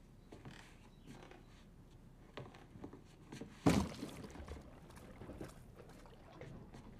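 A cardboard box is set down on a sheet-covered bed with a single dull thud a little past halfway, and a low rumble dies away after it. Soft footsteps and cardboard rustles come before and after.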